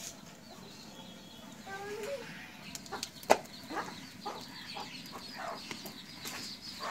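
Chickens clucking, with one sharp knock about three seconds in.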